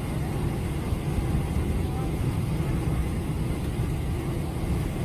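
Steady low rumble of a vehicle's cabin noise, engine and air noise at an even level, with faint voices under it.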